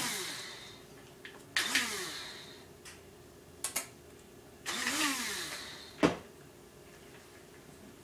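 Electric coffee grinder motor winding down as it is switched off, then pulsed on twice for short whirs that rise and fall in pitch. Sharp clicks come between them, the loudest about six seconds in.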